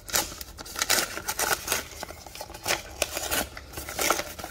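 Packaging being unwrapped by hand: the wrapping crinkles and rustles in irregular bursts as it is pulled and folded back.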